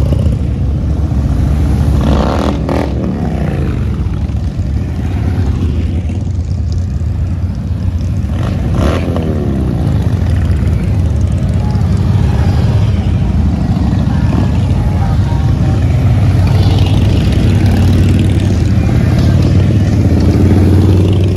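A procession of cruiser and touring motorcycles riding slowly past in a steady stream, their low exhaust note continuous. The pitch drops as single bikes pass close, about two and a half and nine seconds in.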